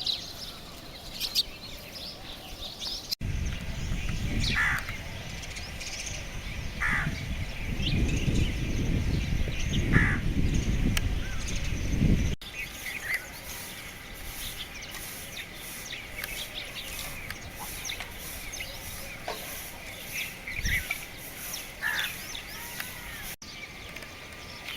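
Various birds calling outdoors in short separate calls, across several cut-together clips. A heavy low rumble fills the middle stretch, and the sound changes abruptly at the cuts.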